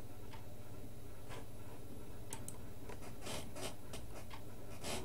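Quiet room tone: a low steady hum with a few faint, scattered clicks and light rubbing.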